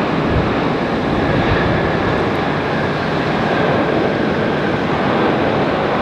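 Airbus A380 jet engines on landing: a steady rushing jet noise with a faint high whine above it.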